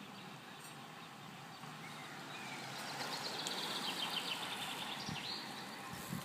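Outdoor ambience with a songbird singing a fast trill of rapid repeated high notes lasting about two seconds, ending in a short rising note.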